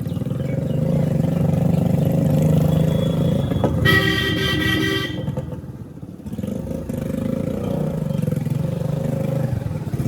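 Motorcycle engine running steadily, with a vehicle horn sounding once for about a second, about four seconds in.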